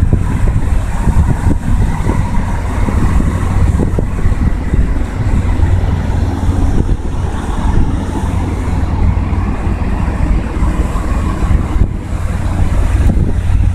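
Wind buffeting the microphone: a loud, gusty low rumble that flutters in strength, with a faint steady tone underneath.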